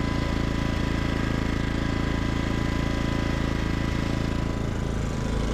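Small portable generator engine running steadily, heard close up at its muffler outlet, with a second generator running alongside. This unit has the louder muffler of the two.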